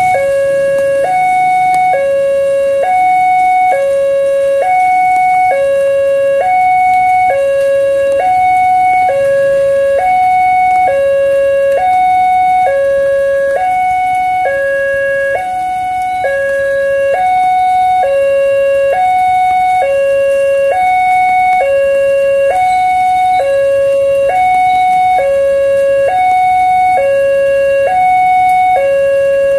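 Railway level-crossing warning alarm sounding a loud, steady two-tone electronic signal, a high and a low tone alternating every half second or so. With the barrier down and the lights flashing, it signals that a train is approaching.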